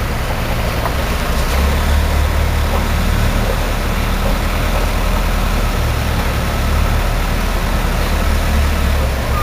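Heavy engine of construction machinery running steadily with a deep, continuous rumble.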